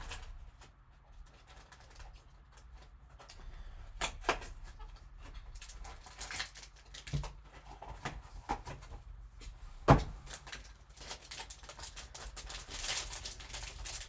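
Hockey card box and packs being handled and opened on a table: scattered taps and knocks of cardboard, with wrapper rustling. One louder knock comes about ten seconds in.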